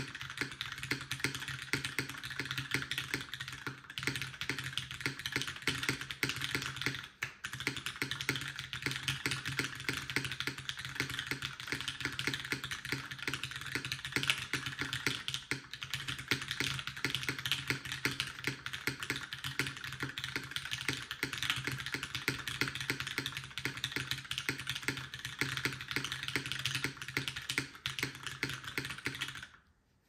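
Fast continuous typing on a dnworks SBL custom mechanical keyboard fitted with linear black switches on an aluminium plate and TX stabilizers: a dense stream of key clacks with one short pause about a quarter of the way in, stopping right at the end.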